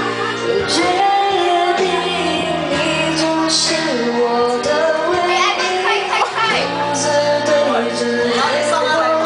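A woman singing karaoke into a microphone over a recorded backing track with a steady drum beat.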